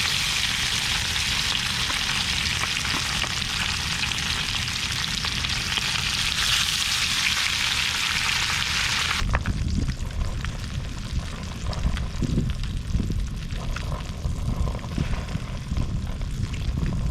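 Whole rainbow trout frying in hot butter in a pan, a loud steady sizzle. About nine seconds in the loud sizzle cuts off abruptly, leaving a fainter sizzle with low rumbling and a few light knocks.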